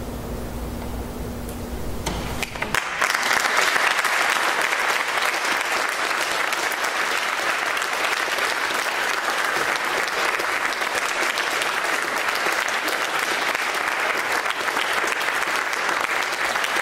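A low steady hum. About three seconds in, audience applause breaks out and continues at a steady level.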